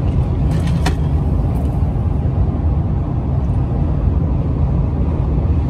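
Steady low rumble of a car driving, heard from inside the cabin, with a brief click about a second in.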